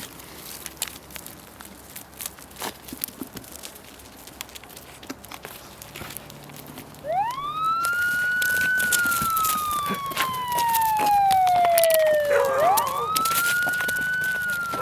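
Police siren sound effect: about seven seconds in, a loud wail starts, rising quickly and then falling slowly, and it goes through two long cycles. Before it come scattered sharp clicks and knocks.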